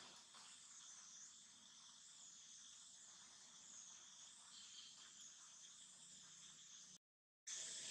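Faint, steady chorus of insects, a high-pitched buzzing drone that wavers slowly in pitch. It drops out completely for about half a second near the end.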